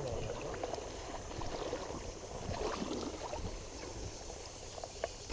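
Shallow river water sloshing and gurgling at a steady low level, with a few faint clicks.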